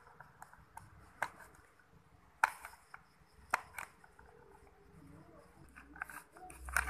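A few sharp clicks and small taps of a screwdriver tip prying at a blender motor's metal bracket and plastic housing, with the loudest click about two and a half seconds in.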